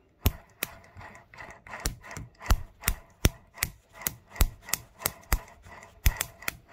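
Lucas RS1C/W magneto turned by hand, its high-tension lead snapping a spark across a widened gap to the magneto body as a sharp click about three times a second, over a faint rubbing. The spark is a hot one: the magneto is working.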